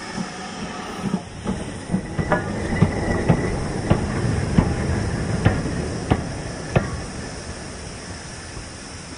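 GWR Manor-class 4-6-0 steam locomotive running slowly past: steam hiss under a run of sharp knocks about every half second to second. It swells as the engine draws alongside and fades as it moves away, with a brief high squeal about two seconds in.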